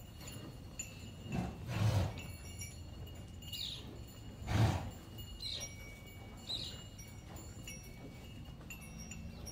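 Cowshed sounds during hand milking: two soft breathy whooshes, one between one and two seconds in and another near the middle, over light, high, tinkling chirps.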